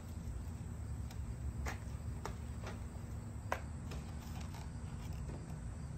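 Scattered light clicks and taps, about half a dozen, the sharpest about three and a half seconds in, from hands handling a boxed diecast model bulldozer and its packaging, over a steady low background rumble.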